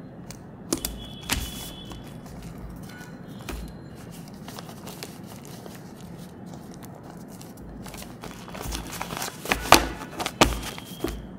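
Paper handling: a paper sticker strip pressed onto a paper envelope, then a stack of envelopes handled, with rustling and several sharp clicks and taps, loudest near the end.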